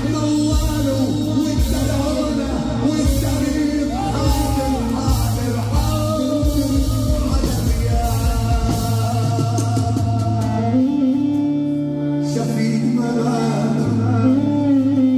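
A man singing an Arabic mawwal into a microphone with live band accompaniment: a held, ornamented vocal line over sustained bass notes. A drum beat runs under the first part and stops about nine seconds in.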